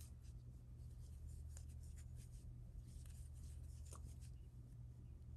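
Faint rustling and scratching of yarn and a crochet hook as stitches are worked by hand, with a small click about four seconds in, over a steady low hum.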